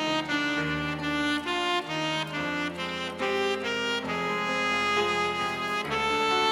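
Slow instrumental hymn music: a melody of long held notes over sustained chords.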